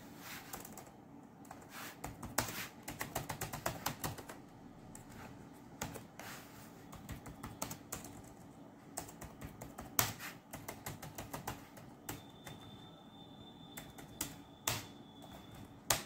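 Acer laptop keyboard being typed on: quick runs of key clicks, with pauses and a few single louder keystrokes near the end.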